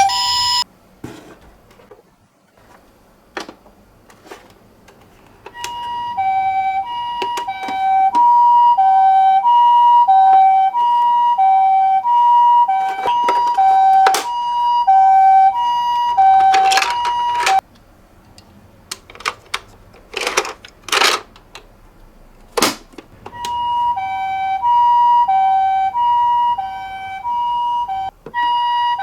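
Toy ambulance minicar's electronic siren, a high and a low note alternating steadily like a Japanese ambulance's two-tone siren. It cuts out about a second in, sounds again for about twelve seconds, pauses, and comes back near the end, with scattered clicks, knocks and a few brief rushing noises in the pauses.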